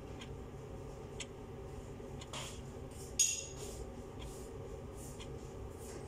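A metal spoon scraping and tapping against a clay pot, a few light clicks with one louder scrape about three seconds in, over a steady low hum.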